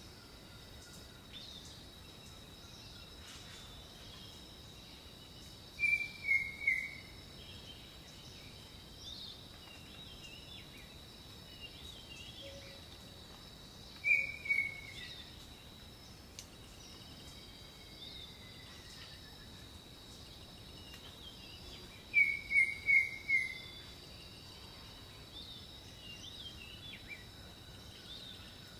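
Birds singing outdoors: one bird repeats a short phrase of three or four quick falling notes about every eight seconds, while other birds add small scattered chirps. A steady high-pitched whine runs underneath throughout.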